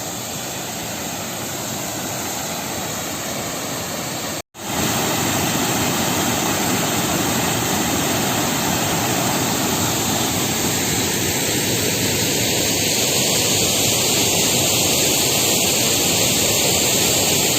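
Waterfall rushing, a steady even roar of falling water. It cuts out for a moment about four and a half seconds in and comes back louder.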